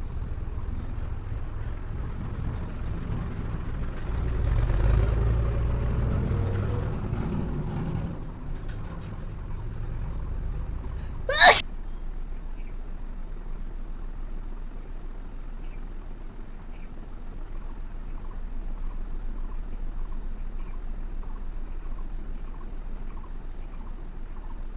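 A person blows their nose hard for a few seconds, starting about four seconds in. About seven seconds later comes a single short, sharp sneeze, the loudest sound here.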